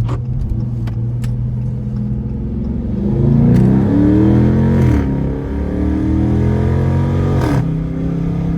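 2019 Dodge Charger R/T's 5.7-litre HEMI V8, with a newly fitted JLT cold air intake, accelerating hard. The engine pitch climbs about three seconds in, falls at an upshift near five seconds, climbs again and falls at a second upshift near the end, with the intake described as screaming.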